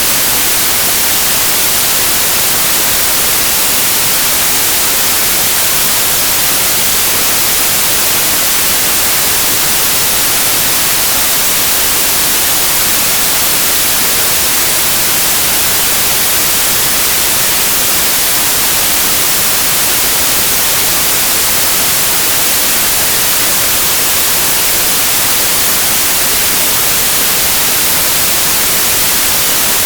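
Steady, loud white noise: an even hiss with no change in level or pitch.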